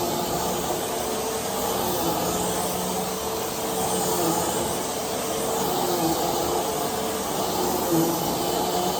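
Hoover Whole House Rewind upright vacuum cleaner running steadily: a motor hum over a rushing airflow hiss, the motor note wavering slightly in pitch.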